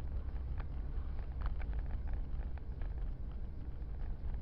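Steady low rumble of a car driving, with faint scattered clicks.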